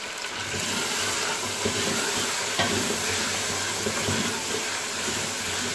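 Beef and spice masala frying in oil in a pressure cooker pot, sizzling steadily while a wooden spoon stirs it, with a few scrapes of the spoon against the pot. The sizzle grows a little louder about half a second in as the stirring starts.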